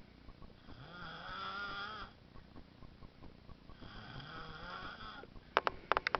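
A sleeping baby snoring: two long, drawn-out snores about three seconds apart. Near the end comes a quick run of sharp clicks, louder than the snores.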